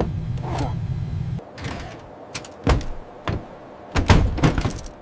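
A low steady rumble cuts off about a second and a half in. It is followed by a series of thuds and knocks, with the heaviest cluster about four seconds in.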